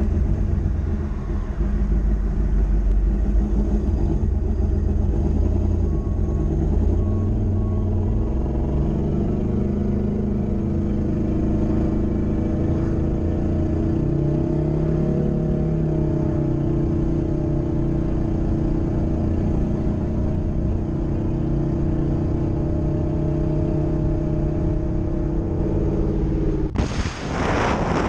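Turbocharged 1988 Chevrolet Caprice engine pulling the car along the road, heard from inside the cabin, its pitch stepping up and down over the first several seconds and then holding steady. Near the end it gives way suddenly to loud wind rushing over the microphone.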